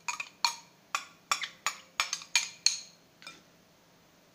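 Metal spoon clinking against glass bowls: about ten quick, ringing taps over the first three seconds and one fainter tap after, as the spoon scrapes and knocks broth out of a small glass bowl into the mixing bowl.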